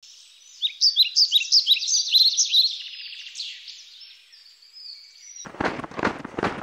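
Birds singing: a quick run of high chirps that thins after about three seconds into fainter calls. About five and a half seconds in it cuts abruptly to the crunch of snowshoes running on snow, about four crunches a second.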